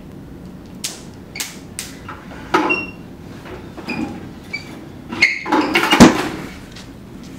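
A person moving about and falling on a tiled classroom floor: scattered knocks and scuffs with a few short squeaks, then a heavy thud about six seconds in as the body hits the floor.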